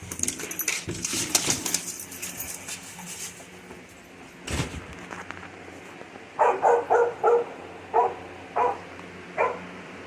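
Clattering and rustling, then a single thump about four and a half seconds in, followed by a dog barking seven short times in quick succession over the last few seconds.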